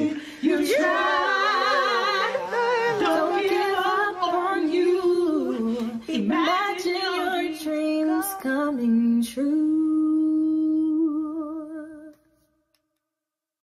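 A group of male and female voices singing together with vibrato, ending on a long held note that fades out about twelve seconds in.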